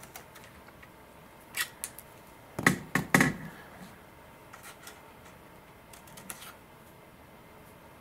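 Small handling noises of a servo and its tray being pushed into place inside a carbon-fibre tail boom: light clicks and taps, with a short cluster of louder knocks about three seconds in.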